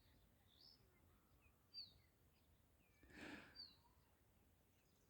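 Near silence with faint, short bird chirps about once a second, each a quick falling note, and a brief soft rustle-like noise about three seconds in.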